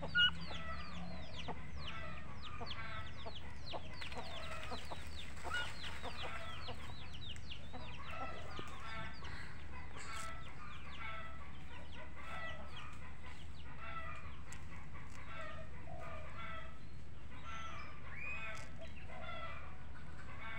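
Domestic fowl calling: a steady stream of short clucks and quick falling chirps, repeated every second or so, over a steady low hum, with a brief louder sound right at the start.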